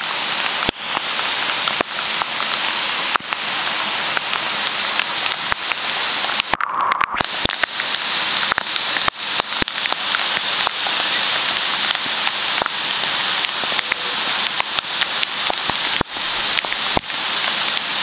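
Waterfall rushing into a rock pool: a loud, steady hiss of falling water sprinkled with many sharp crackles and pops, briefly broken about six and a half seconds in.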